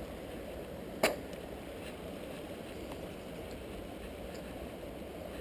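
A single sharp click or knock about a second in, over a steady low rushing background.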